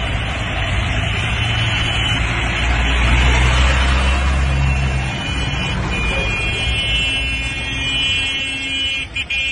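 Heavy vehicle engines rumbling, then vehicle horns honking from about six seconds in: a steady, high-pitched blare held on, briefly broken near the end.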